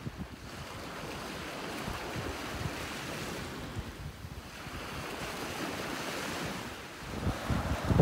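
Small waves washing onto a sandy beach: a steady rush that swells and eases. Wind rumbles on the microphone in gusts, loudest near the end.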